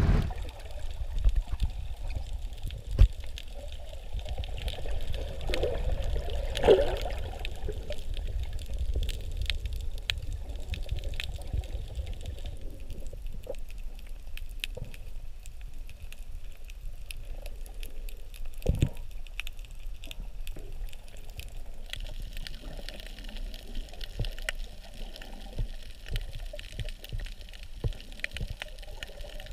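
Underwater sound over a coral reef: a muffled low rumble of water with gurgles and many small scattered clicks and crackles, with a louder gurgle about seven seconds in.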